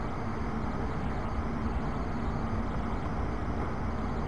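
Steady low rumble and hiss with a faint constant hum: the room's background noise.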